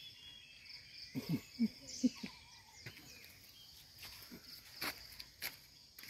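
Steady high-pitched insect chorus, with a few short, louder low sounds about a second in and a few sharp snaps near the end.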